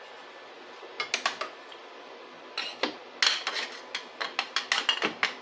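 Light metal clinking and rattling of stainless steel muffler parts and tools being handled: a few sharp clinks about a second in, then a busier run of quick clatters from about halfway on.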